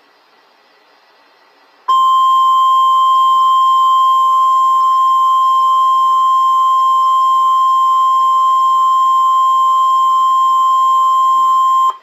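NOAA Weather Radio 1050 Hz warning alarm tone, one steady high-pitched beep. It starts abruptly about two seconds in, holds for about ten seconds and cuts off sharply. It signals the tornado watch alert that is about to be read.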